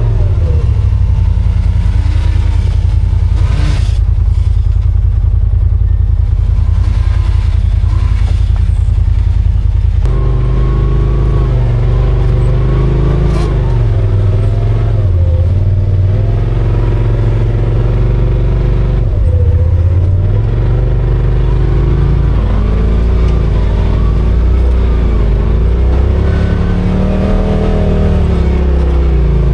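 Off-road side-by-side engine running under way, loud and steady, with the revs rising and falling repeatedly.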